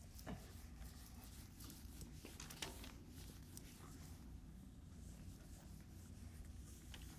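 Whiteboard eraser wiping across a whiteboard in faint, uneven strokes, over a low steady room hum.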